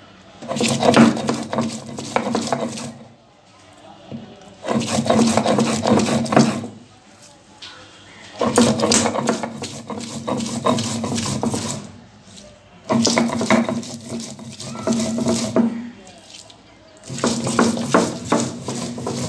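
Cylindrical grinding stone (nora) rubbed back and forth on a flat stone slab (shil), grinding garlic, onion and green chilli into a paste. The rasping strokes come in bursts of two to three seconds with short pauses between.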